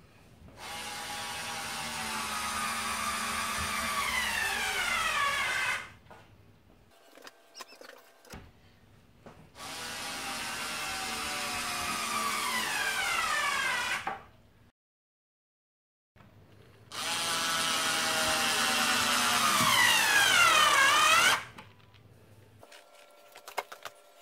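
Skil 360 Quick Select 4V cordless electric screwdriver driving screws, three runs of its motor whine of about four to five seconds each. Each run grows slowly louder and drops in pitch near its end as the screw seats under load, then cuts off.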